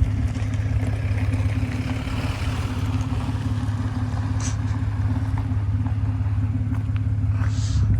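1992 Holden VP Commodore driving at a steady cruise: an even engine and road drone with a constant low hum that neither rises nor falls.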